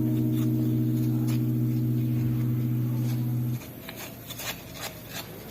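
Background music holding a sustained chord, which cuts off suddenly about three and a half seconds in, followed by a few faint clicks.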